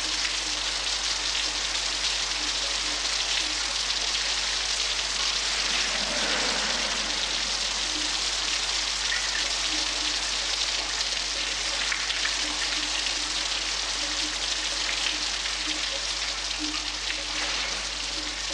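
A shower running steadily, with water spraying from the shower head and splashing down over a person.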